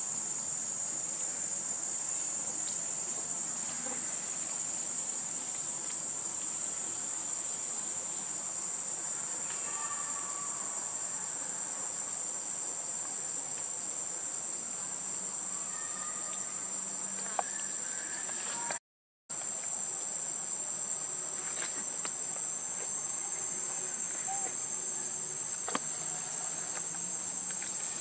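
Steady, high-pitched insect chorus, a continuous shrill drone that holds one pitch throughout; the sound cuts out completely for about half a second roughly two-thirds of the way through.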